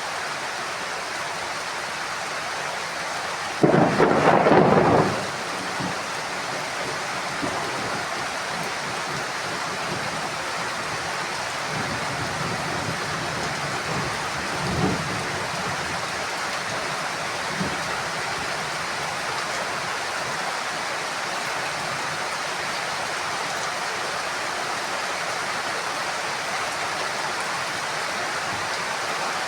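Heavy rain falling steadily, with a sudden loud thunderclap about three and a half seconds in that lasts about a second and a half. Two fainter rumbles of thunder follow about halfway through.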